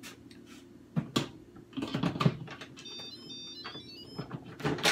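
Lid of an electric pressure cooker clunking and scraping as it is set on the pot and turned to lock, with a few sharp knocks. About halfway in the cooker plays a short electronic chime tune of high beeps stepping down in pitch.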